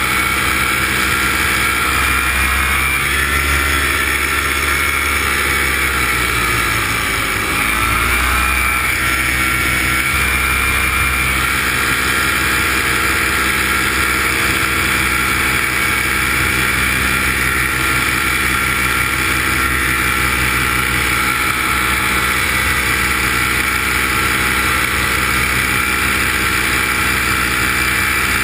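Engine and propeller of a small aircraft running steadily in flight; the revs drop briefly about seven seconds in and come back up.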